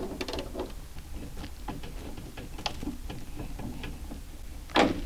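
Hand tools working on the window-stop bracket inside a 1969 Mercury Cougar door: scattered light metallic clicks and ticks as the stop is loosened, bunched at first and then sparse, with one sharper clack near the end.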